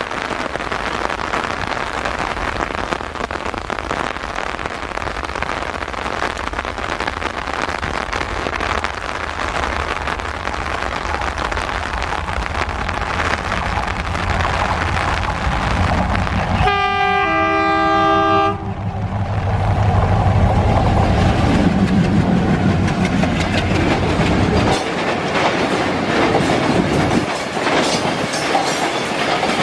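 Twin ALCO diesel locomotives, a WDM-3A and a WDM-3D, approaching and passing at the head of a loaded RO-RO truck-carrying freight train. A steady engine rumble builds, a horn with two notes sounding together blows for about two seconds just past halfway, the engine rumble is loudest as the locomotives go by, and near the end the clatter of the wagon wheels over the rail joints takes over.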